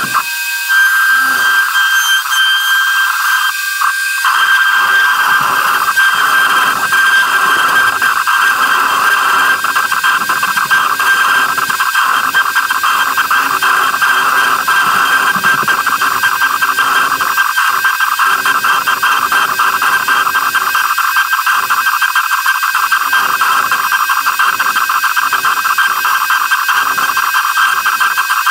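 X-Carve CNC router spindle whining at a steady high pitch as a 60-degree V-bit carves red oak. About four seconds in, an uneven rasping cutting noise joins the whine as the bit moves through the wood.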